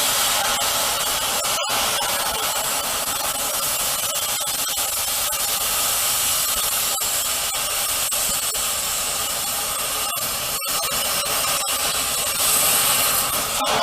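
Gas cutting torch running with a steady hissing roar as it cuts through a gearbox sprocket shaft, briefly cut off twice.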